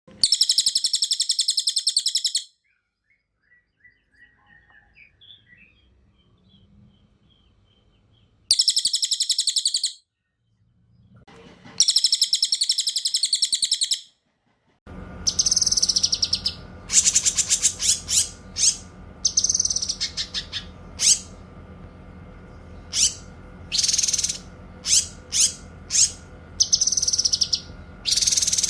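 Caged songbirds of the kind used for masteran, a cililin and a cucak kinoy. It opens with three long, rapid rolling trills, separated by faint scattered chirps. About halfway through, the recording switches to a steady hum with a string of short, varied chirps and whistles.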